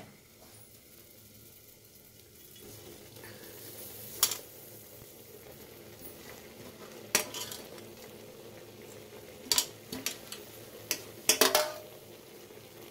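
A metal spoon stirring in an aluminium pot of simmering moong dal with chopped chickpea greens, clinking sharply against the pot several times, most often near the end, over a faint steady bubbling.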